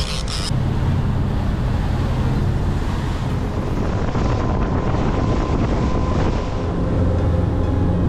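Motorboat running at speed across open water: wind buffeting the microphone over the boat's low, steady engine drone and the splash of water along the hull.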